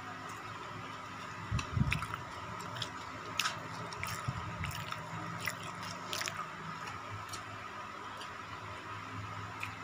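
A man chewing a mouthful of rice and fish, eaten by hand, with wet mouth smacks and many small sharp clicks, over a faint steady hum. A low soft thump comes about two seconds in, and a smaller one near the middle.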